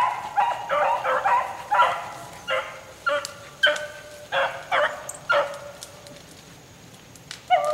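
Beagles baying on a rabbit's trail: a run of short, pitched barks, about two a second, that thin out and stop about five and a half seconds in, with one more bark near the end.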